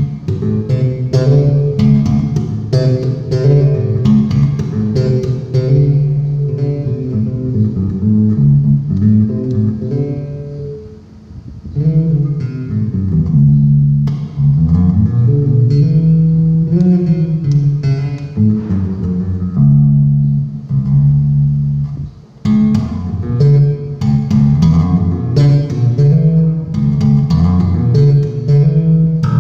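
Squier electric bass guitar played solo, a continuous run of plucked bass lines, sound-checking the new instrument, with brief breaks about eleven and twenty-two seconds in.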